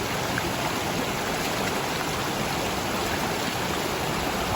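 Steady rush of waterfall and river water, an even noise with no change in level.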